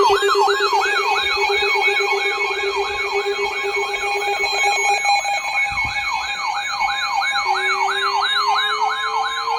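Siren tones sounding together: a fast yelp sweeping up over and over, about three to four times a second, over steady tones. A lower tone drops out about halfway through, and a slow rising wail starts near the end.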